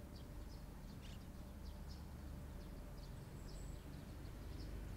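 Faint outdoor background: small birds chirping, a dozen or so short high chirps scattered irregularly over a steady low rumble.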